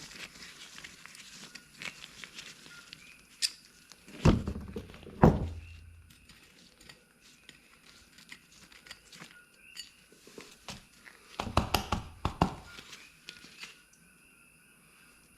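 Metal hand tools and clutch parts being handled on a workbench: scattered light clicks, two heavy knocks about four and five seconds in, and a quick run of knocks near twelve seconds.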